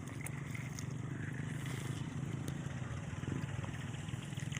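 A small engine running steadily, a low pulsing hum.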